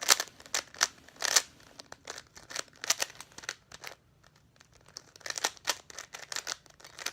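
A regular (non-speed) Rubik's cube being turned fast by hand, its plastic layers clicking and clacking in quick irregular runs, with a short lull about four seconds in.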